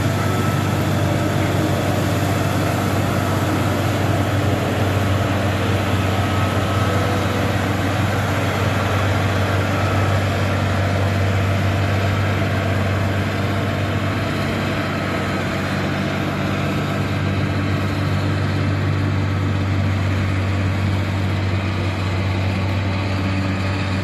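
Caterpillar motor grader's diesel engine running steadily as the machine pushes gravel with its blade: a deep, even drone with a steady hiss over it, easing a little in the second half as the grader moves off.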